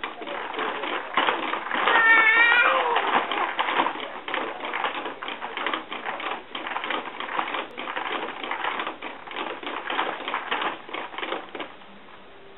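A baby activity jumper creaking and rattling over and over as a toddler bounces in it, with a brief high, wavering squeal about two seconds in. The bouncing noise stops near the end.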